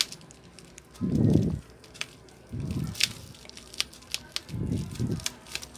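Sharp, irregular crackling clicks as a thin plastic pry card is worked under the edge of a cracked Huawei Y9 screen, splitting the glass from its adhesive. Three low, muffled rumbles, each about half a second, are the loudest sounds.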